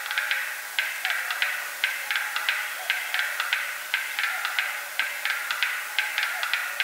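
Black-billed capercaillie's display song: a run of sharp, dry clicks, several a second in uneven groups, over a steady hiss.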